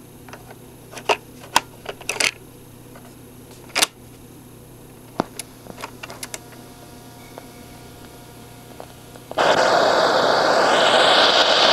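Plastic clicks and knocks as a cassette is loaded into a Studebaker SB2129 portable cassette recorder and its keys are handled, then the play key goes down. About nine seconds in, music from the tape starts playing loudly through the recorder's speaker.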